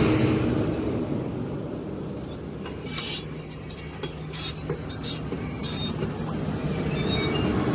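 Heavy diesel machinery running steadily, with a few sharp metallic clanks scattered through.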